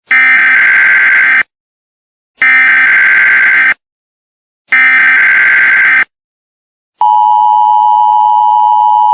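Emergency Alert System opening: three bursts of SAME digital header data tones, each about a second and a half long with a short silence between, then about seven seconds in the steady two-tone EAS attention signal begins.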